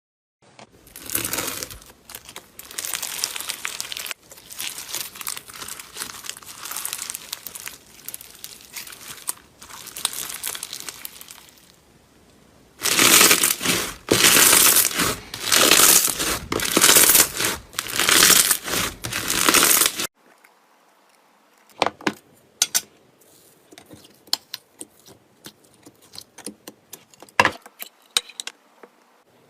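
Slime dough being squeezed and stretched by hand, giving a dense crinkly crackling, louder from about thirteen seconds in. After about twenty seconds it thins out to scattered sharp clicks and pops.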